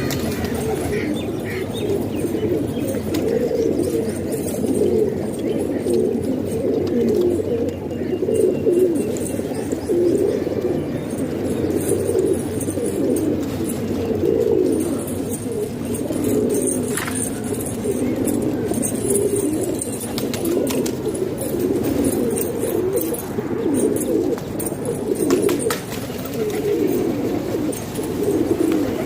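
Several domestic pigeons cooing together, their low coos overlapping into a continuous murmur.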